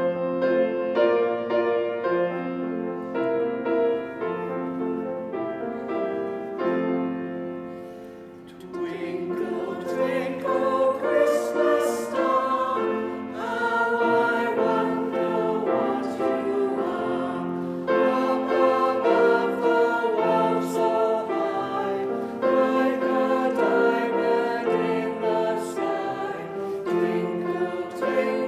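Choir singing with piano accompaniment, the music dipping briefly about eight seconds in before continuing fuller.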